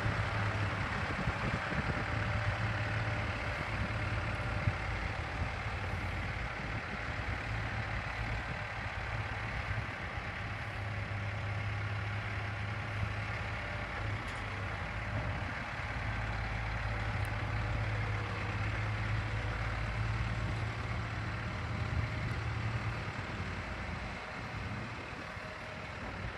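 Engine of a 1995 Ford tandem-axle tender truck idling steadily as a low, even hum.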